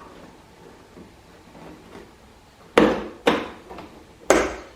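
Sharp plastic knocks and snaps from a side-by-side's inner plastic door panel being worked loose and popped off its door. Three loud knocks come in the second half, with smaller clicks between.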